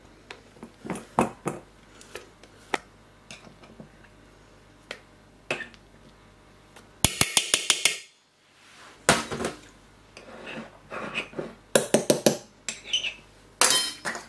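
Metal spoon clinking and scraping against a glass jar and a stainless steel mixing bowl as thick mustard is spooned into the jar, with scattered light taps and a quick run of rapid taps about seven seconds in.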